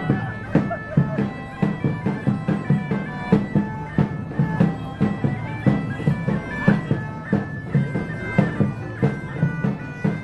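Bagpipes playing a tune over a steady beat.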